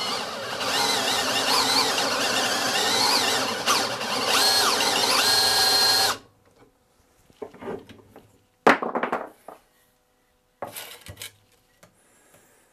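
Power drill boring into a walnut chair leg held in a vise, the motor's pitch wavering and gliding as the bit goes deeper. It stops about six seconds in. A few clunks follow, with one sharp knock a couple of seconds later.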